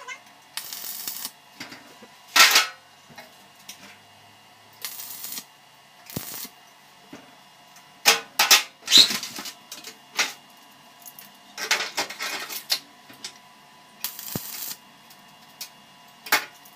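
Locking pliers and steel clanking and rattling against the sheet-metal tank in about ten short, sharp bursts, with the loudest a couple of seconds in and a quick cluster around eight to nine seconds in.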